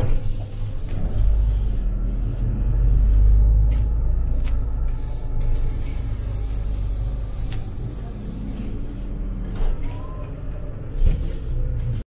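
City bus heard from inside: a steady low engine rumble that swells about three seconds in, with short intermittent hisses of compressed air.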